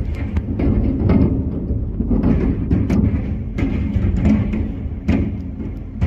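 Fireworks going off in quick, irregular succession: deep booms and sharp cracks over a continuous low rumble.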